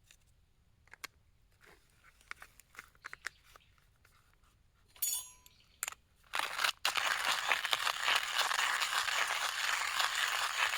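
A few light clinks and taps, then, about six seconds in, steak laid in a hot frying pan starts sizzling loudly and steadily until it cuts off abruptly at the end.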